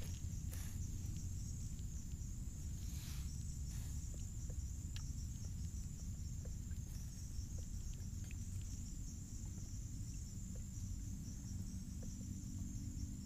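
A steady, high-pitched chorus of night insects trilling, over a continuous low rumble.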